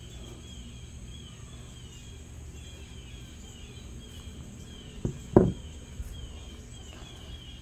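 A small glazed stoneware bowl set down on a plywood board, making two light knocks about five seconds in, the second louder. Under it, a steady low hum and a faint high chirp repeating about twice a second.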